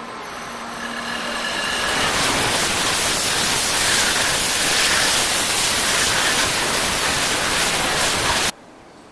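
Tokaido Shinkansen 700 series bullet train passing close by at speed: a rushing noise builds as it approaches, then holds as a steady loud rush while the cars go by, cutting off suddenly near the end.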